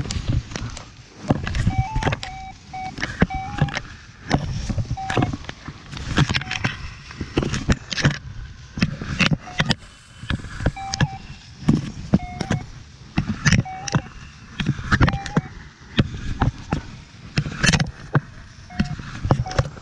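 Rustling, rubbing and knocking of clothing against the camera microphone, rising and falling about once a second with each walking step. Short high piping notes sound here and there in the background.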